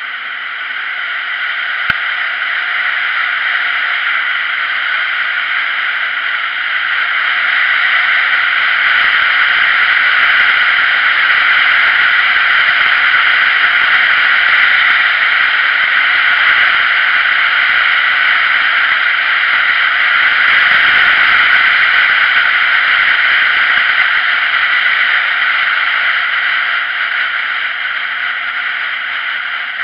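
Steady rushing wind noise over the microphone of a camera mounted on a moving motorcycle, which drowns out the engine. The noise grows louder about seven seconds in and eases near the end, with a single sharp click about two seconds in.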